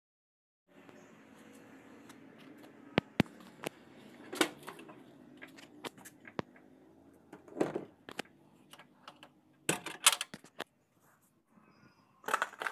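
Scattered sharp clicks, taps and knocks with some rustling, typical of handling and working around a van's interior, over a faint steady hum. The loudest clusters come about halfway through, near the end and just before the end.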